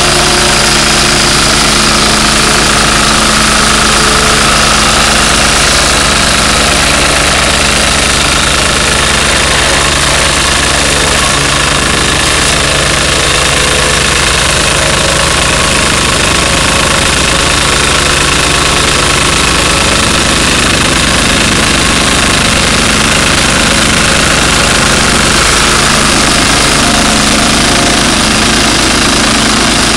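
Reversible plate compactor driven by a KAMA 178F single-cylinder diesel engine, running steadily as its vibrating plate works over loose gravel: a loud, continuous knocking diesel run with the vibration of the plate on stone.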